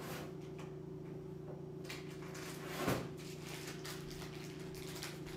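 Faint household handling noises in a kitchen: small knocks and rustles, with one heavier thump about three seconds in, like a cabinet door shutting, over a steady low hum.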